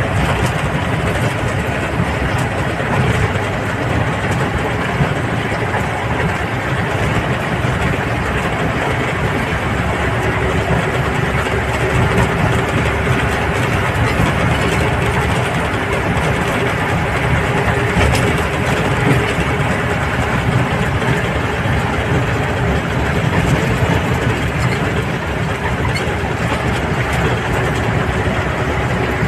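Motorcycle engine running steadily under way on a rough dirt road, mixed with loud, even rumbling road noise.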